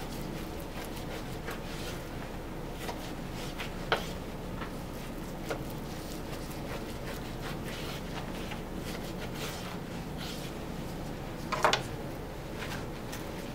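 Quiet room tone with a steady low hum while a butcher's knife slices steaks from a boneless beef chuck roll on a wooden cutting board. There are a few faint ticks, and a short cluster of clicks about two seconds before the end as a cut steak is lifted off the board.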